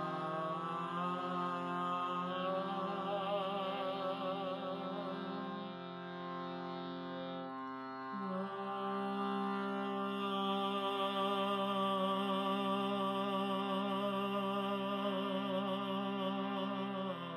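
Meditative drone music: steady sustained tones with a wavering, pulsing layer above them, shifting to a new chord about eight seconds in.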